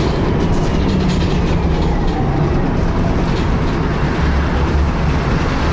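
Inside a moving DAF-chassis Alexander ALX300 single-deck bus: steady low engine and road rumble, with a faint whine like a cooling fan, of unknown cause.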